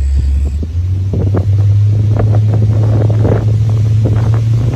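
Pontoon boat's motor running underway, its low drone stepping up in pitch a little under a second in, with wind buffeting the microphone.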